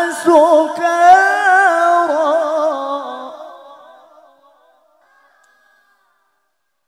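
A man's voice reciting the Qur'an in melodic tilawah style through a microphone, drawing out the word "sukara" in a long, wavering, ornamented melisma that fades away about four seconds in.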